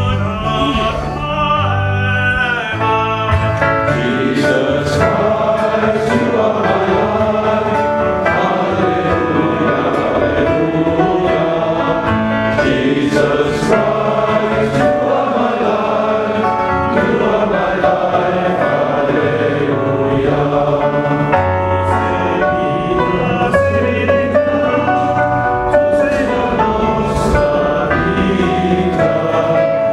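Many men's voices singing a hymn together, with violin and acoustic guitar accompanying.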